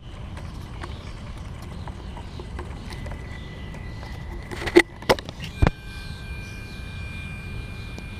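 Handling noise from a 3DR Solo drone held in the hand: a few sharp knocks and rubs about halfway through as a hand grips the drone over its camera, over a steady low rumble. A thin, steady high tone sounds for a moment before the knocks and comes back after them.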